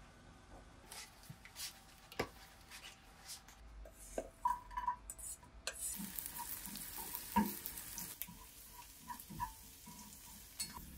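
Sliced garlic frying in oil in a stainless-steel pan while chopsticks stir it, tapping and scraping against the pan. Light clicks and taps come first, then a steady sizzle from about six seconds in.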